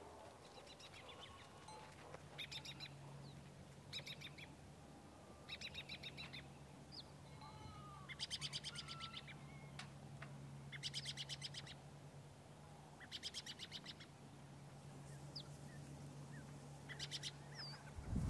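A songbird singing: short, rapid high-pitched phrases of quick repeated notes, about eight of them, coming every second or two. A faint steady low hum runs underneath.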